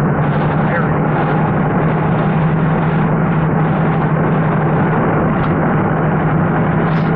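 Inside a moving car: a steady drone of engine and tyre noise on a wet road, with a constant low hum under an even hiss.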